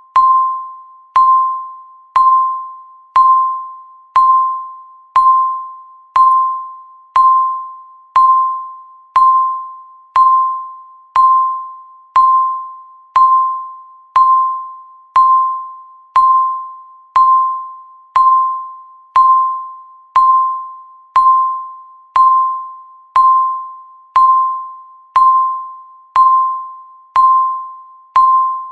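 Countdown timer sound effect: one pitched ding struck every second, each starting sharply and fading away before the next.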